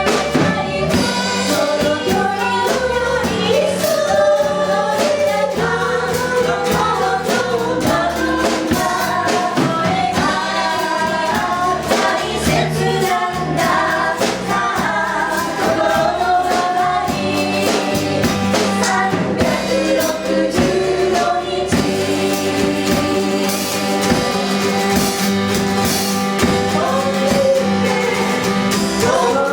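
A live pop band plays with several voices singing the melody together, over bass and a steady drum beat.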